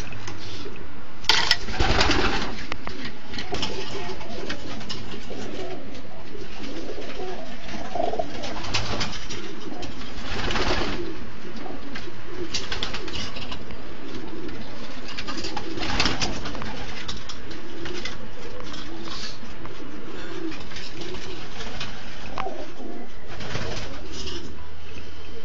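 Racing pigeons cooing in a loft, a steady low murmur of overlapping coos. A few short noisy bursts break in, the loudest near the start.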